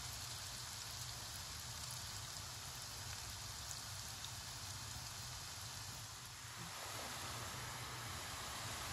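Small balls of dough deep-frying in hot sunflower oil in a pan: a steady, even sizzle of bubbling oil.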